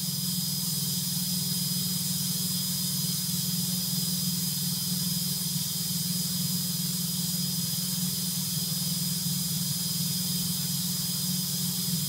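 Single-engine light aircraft's piston engine and propeller, heard from inside the cabin, running steadily in flight, with a thin steady high whine over it.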